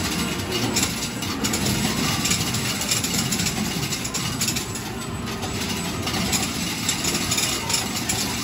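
Game-arcade din around a medal-pusher machine: a steady, dense wash of machine noise, with many small clicks and clinks of metal medals running through it.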